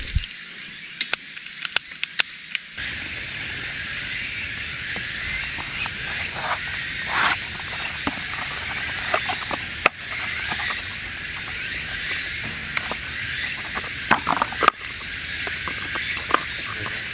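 Several sharp clicks in the first couple of seconds. Then a steady hiss sets in abruptly, with small rustles and ticks over it as a cardboard box of firelighters is opened and handled.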